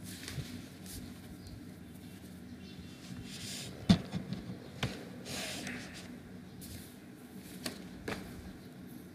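Low room noise with a steady hum. A few sharp clicks or knocks come through it, the loudest about four seconds in.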